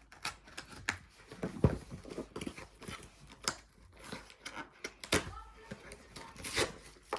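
Irregular clicks and short rustles of objects being handled, a few sharper knocks among them.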